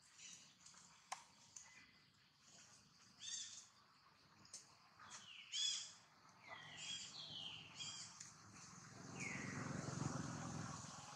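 Baby macaque giving a run of short, high squeals that drop in pitch, mostly in the middle of the clip, with a low dull noise near the end.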